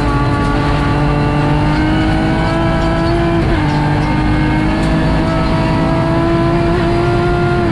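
BMW M3 rally car engine pulling hard at high revs, its pitch climbing slowly, with a brief dip in revs about three and a half seconds in.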